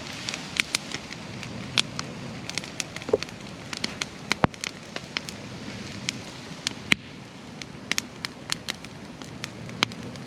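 Wood fire crackling, with irregular sharp pops a few times a second, over a steady hiss of rain.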